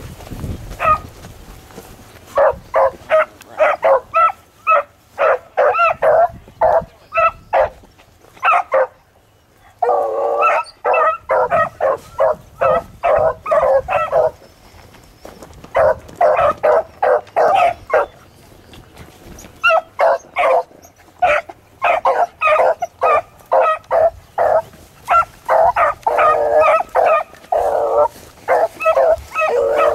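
Beagles baying while running a rabbit's track: runs of short, quick, ringing barks in bouts of several seconds, broken by short pauses.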